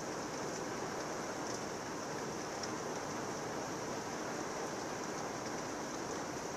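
Heavy thunderstorm rain in a steady downpour: an even, dense hiss with faint ticks of individual drops.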